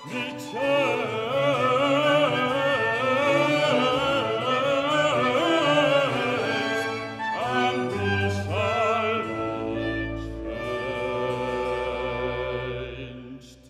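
Baritone singing an aria with wide vibrato over a string orchestra. The music settles into a long held chord that dies away just before the end.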